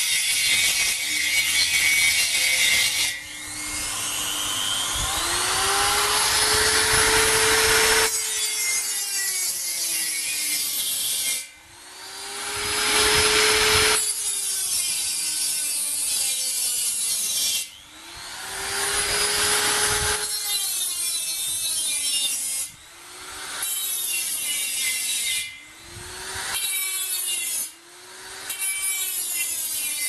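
Small electric angle grinder with a thin cutoff disc cutting into the steel wall of an LPG gas cylinder, in repeated passes of a few seconds each. The grinding of disc on steel rides over the motor's whine, which climbs as the disc spins up and sags as it bites into the metal.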